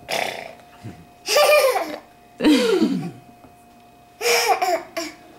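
A toddler laughing in four short bursts.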